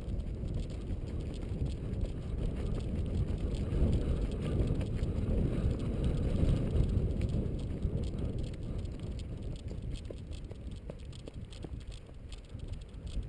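Wind rumbling on the microphone of a camera carried by someone jogging, with faint footsteps on a gravel track; it swells in the middle and eases toward the end.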